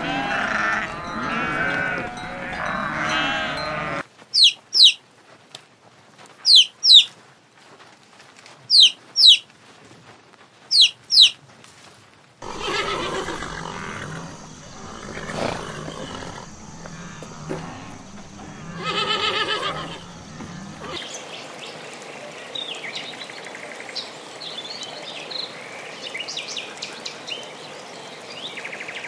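Goats bleating in a herd, then four pairs of sharp, high, falling calls. Later a horse whinnies once, and near the end water splashes as a crowd of koi churns at the surface.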